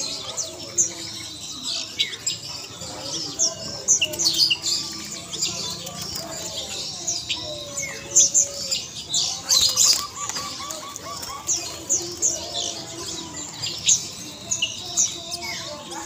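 Caged birds at a bird market: many short, high chirps overlapping throughout, with a quick run of repeated lower notes about ten seconds in. Zebra doves flap their wings against a crowded cage.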